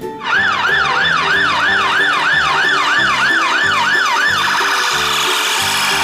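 Emergency-vehicle siren on a passing police vehicle, yelping up and down about three times a second, then switching a little past four seconds in to a much faster warble.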